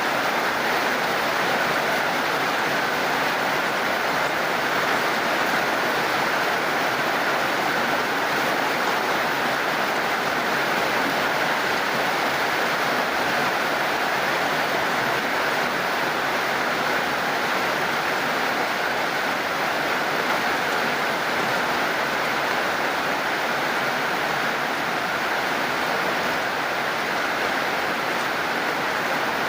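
Heavy rain falling steadily, an even hiss with no breaks or changes.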